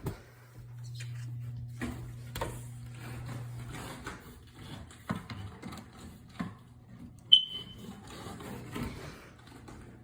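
Knocks and clicks of handling, then about seven seconds in a single short, loud, high beep from a smoke alarm as its test button is pressed. A low hum runs under the first few seconds and stops.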